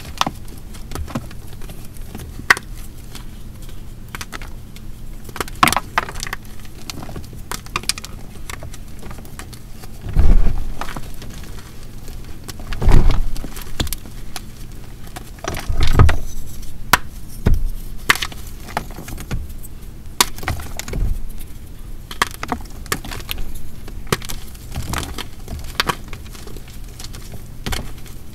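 A heart made from BSN gym chalk and water being crushed, crunching and crumbling with a running crackle of small breaks. Heavier crunches come about ten, thirteen and sixteen seconds in.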